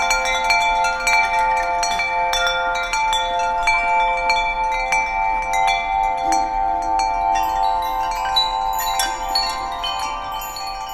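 Wind chimes ringing: many quick, irregular strikes over steady overlapping metallic tones, getting a little quieter near the end.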